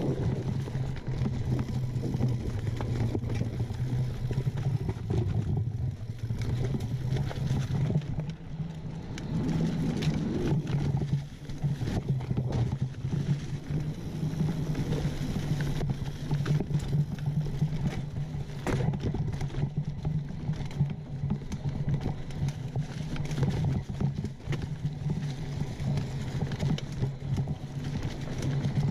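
Mountain bike riding over rocky dirt singletrack: the tyres running on dirt and the bike rattling and knocking over rocks and roots, over a steady low rumble.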